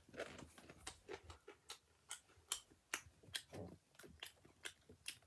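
Faint, irregular clicking: short sharp ticks about two or three a second, with a few soft low rustles between them.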